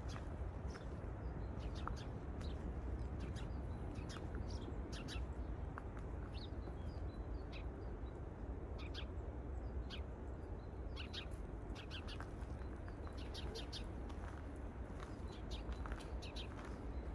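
Birds chirping in short, high calls, often two or three in quick succession, over a steady low background rumble.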